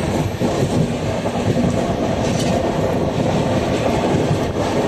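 Running noise of a superfast express passenger train at speed, heard from on board the coach: a steady, dense rumble.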